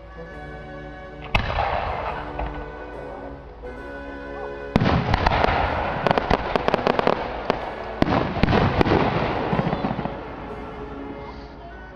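Aerial fireworks bursting: a single sharp bang about a second and a half in, trailing into crackle, then a heavy barrage of rapid bangs and crackling from about five to ten seconds in. Music plays steadily underneath.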